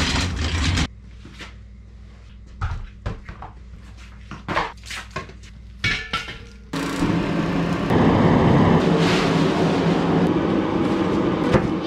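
Scattered metal clinks and knocks as a propane tank is handled and hooked up to a portable forced-air propane heater. Then, about seven seconds in, a loud, steady rush with a low hum starts suddenly: the heater's burner and fan running.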